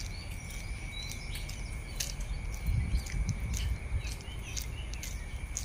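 Many short, high bird chirps over a steady high-pitched insect drone in a garden at dawn. A low rumble of phone handling from walking runs underneath, with a few thumps about three seconds in.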